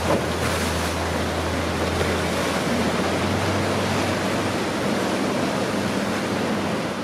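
A rigid inflatable boat running at planing speed: the steady rush of water and spray from the hull and wake over the low, even drone of its outboard motor.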